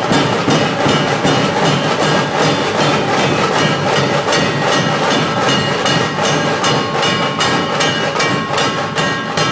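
Dhol tasha drum troupe playing: massed dhol barrel drums and tasha drums beating a fast, even rhythm.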